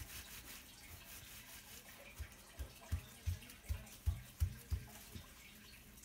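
Slime squelching as it is pressed and rolled under the palms on a table: a run of about nine soft, wet pops, roughly three a second, starting about two seconds in.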